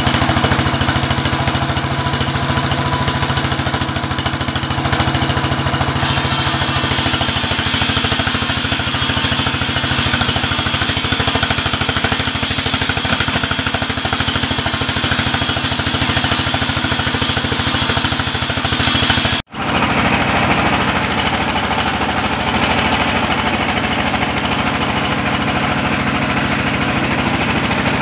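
Briquette-production machinery running steadily: a belt conveyor and moulding line for hexagonal coconut-shell charcoal briquettes, a motor drone with a fast, even rattle. The sound drops out for an instant about two-thirds of the way through, then carries on.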